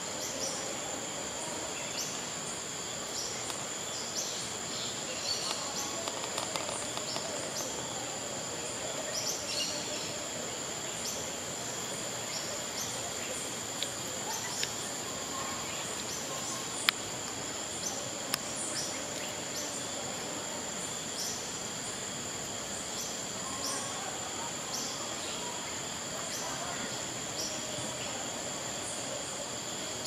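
Tropical rainforest insect chorus: a continuous high-pitched insect drone with many short, repeated insect chirps over it, and a few other chirping calls in the first third. A single sharp click stands out about seventeen seconds in.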